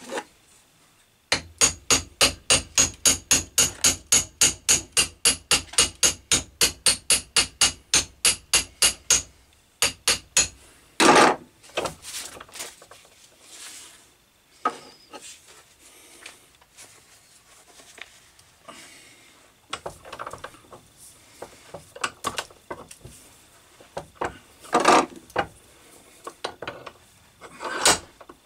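A hammer rapidly tapping a steel axe head down onto its wooden hickory handle, about four to five quick ringing strikes a second for some eight seconds, then a few separate heavier knocks as the head is driven on for a test fit.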